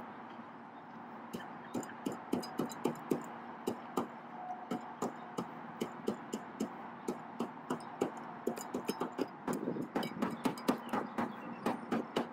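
A hand tamper's flat steel plate pounding limestone screenings in the bottom of the home plate hole to compact the base. It lands as repeated short thuds, about two to three a second, starting about a second and a half in and coming faster near the end.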